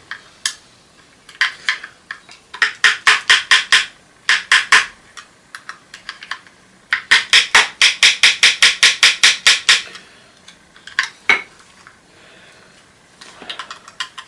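Hammer blows on an old vacuum cleaner's casing, struck in quick bursts at about five a second, with a longer run of a dozen or more blows just past the middle.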